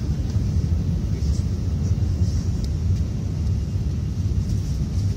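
Airliner passenger-cabin noise: a steady low rumble of the aircraft with a faint hiss above it.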